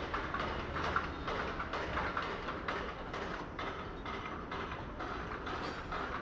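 Rhythmic knocking, about three short strokes a second, over a steady low hum.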